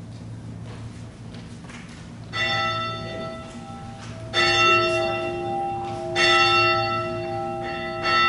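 A bell struck four times about two seconds apart, each stroke ringing on into the next. It is the bell rung to begin the worship service.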